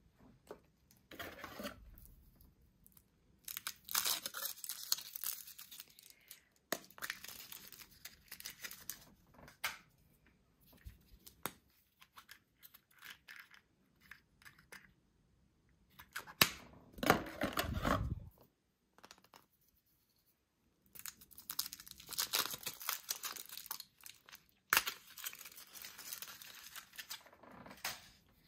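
Foil wrappers of Kinder Surprise chocolate eggs being torn open and crinkled, in about six separate bouts of rustling with short pauses between. The loudest, fullest bout comes about seventeen seconds in.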